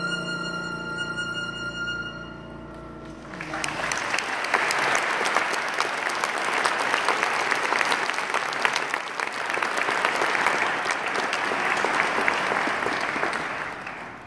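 A violin holds a long final note that fades out, then a large audience bursts into applause about three seconds in. The clapping goes on steadily for about ten seconds and dies away near the end.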